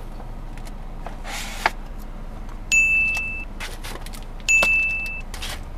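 Two bright electronic dings about two seconds apart, each ringing briefly, with a rustle and a few light clicks before them.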